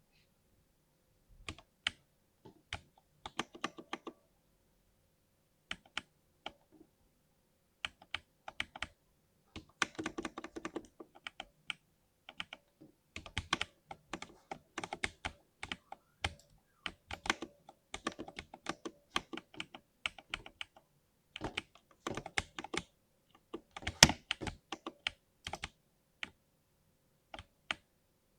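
Typing on a lubed 60% mechanical keyboard: key strikes come in irregular bursts separated by short pauses. One hard strike, a little past the three-quarter mark, is louder than the rest.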